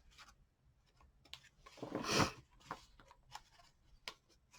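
Paper pages and card of a handmade journal being handled: scattered light clicks and taps, with one soft rustle of paper sliding about two seconds in.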